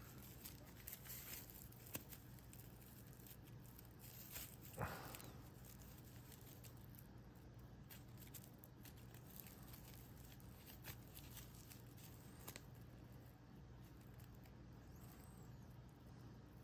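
Faint rustling and scraping of raffia yarn and a needle drawn through crocheted stitches, over near-silent room tone. The clearest rustles come about a second in and about five seconds in.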